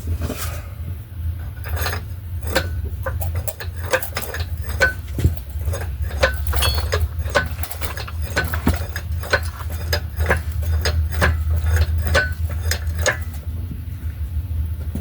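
Irregular light metallic clinks and knocks, at times several a second, as a transmission hung from an engine hoist is maneuvered into place. A steady low rumble runs underneath.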